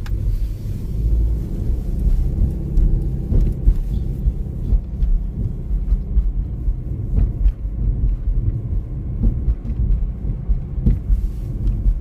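Steady low rumble of a car driving on a wet paved road, heard from inside the cabin: tyre and engine noise, with a few faint ticks scattered through it.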